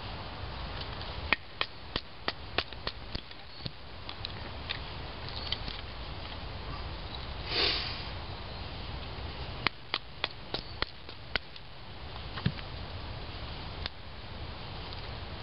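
Knife splitting thin cedar sticks into kindling: two runs of sharp taps and cracks, one about a second in and one about ten seconds in, with a single louder crack a couple of seconds later. A short breathy rush comes near the middle.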